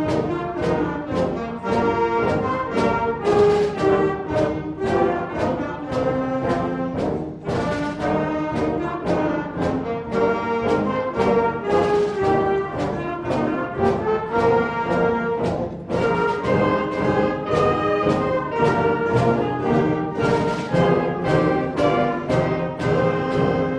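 Middle school concert band playing a march, brass carrying the tune over a steady percussion beat of about two strokes a second.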